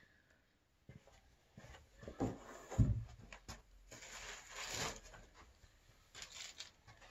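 Sled parts being handled on a carpeted floor: a few light knocks and a dull thud about three seconds in as the plastic pulk sled tub is shifted, then rustling of plastic packaging.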